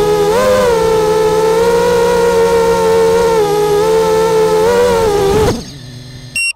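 Racing quadcopter's brushless motors whining steadily at low throttle while the crashed drone lies on the ground, then spinning down with a falling whine about five and a half seconds in. A short, high electronic beep comes near the end.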